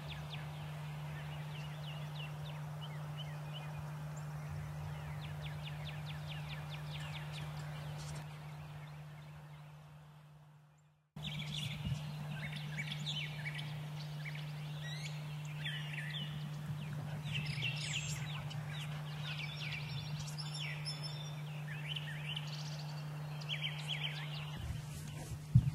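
Wild Osceola turkeys gobbling and calling: rapid rattling gobbles in the first several seconds, fading out. After a brief silence a busy run of turkey calls follows. A single sharp bang comes near the end.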